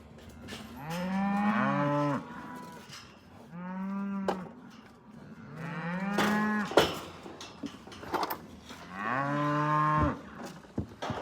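Cattle bawling: four long, drawn-out moos, some overlapping, with a sharp knock between the third and fourth calls.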